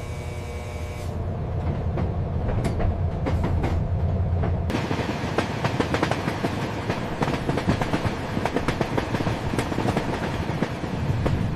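Train running on rails: a deep steady rumble, then, abruptly about a third of the way in, a busy rattle of many clicks and clacks from the wheels and cars.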